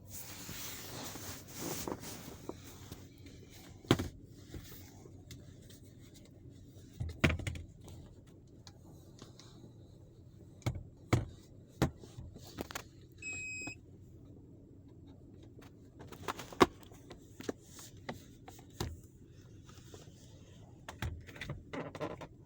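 Scattered clicks and knocks over a low steady hum, with one short electronic beep about thirteen seconds in.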